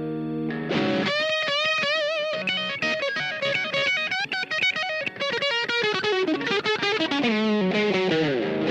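Overdriven electric guitar: a Squier Stratocaster's bridge mini humbucker played through a Demon FX overdrive pedal into a Marshall Jubilee amp. A held chord rings out, then from about a second in comes a single-note lead with vibrato and bends and fast runs, and near the end a descending run.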